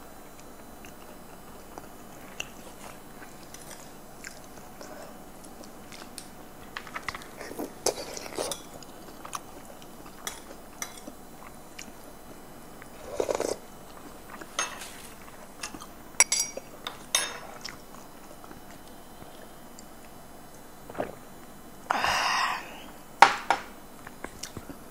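Close-miked eating noises: chewing with scattered mouth clicks and small crunches, and the crackle of shellfish shells being peeled by hand. A louder brief noisy burst comes near the end.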